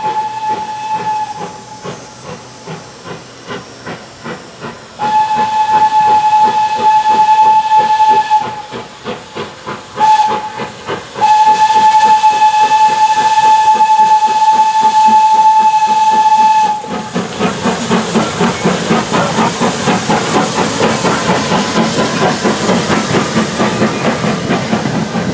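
Steam locomotive whistle blowing the grade-crossing signal: long, long, short, long, over the rapid chuffing of the engine working. About two-thirds of the way in the whistle stops and the train passes close by with a loud rush of exhaust and rolling cars.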